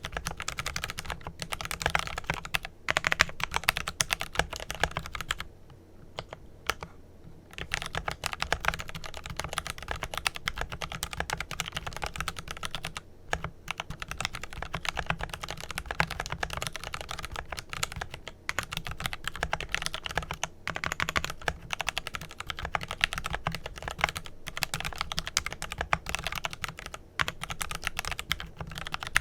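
Fast, continuous typing on a Glorious GMMK Pro mechanical keyboard with lubed Kailh Pro Purple tactile switches and PBT keycaps, dense overlapping key clacks. The typing thins to a few strokes for a couple of seconds about six seconds in, then picks up again.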